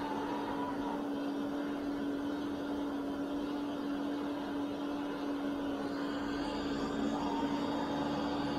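Ecovacs Deebot O950 robot vacuum cleaning a rug with carpet boost (raised suction) on: a steady whir of the suction fan and brushes with a constant low hum, a faint higher whine joining near the end.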